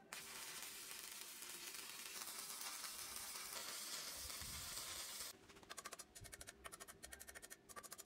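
Stick (arc) welding on steel: the arc crackles and sizzles steadily for about five seconds, then cuts off. A quick run of sharp ticks follows.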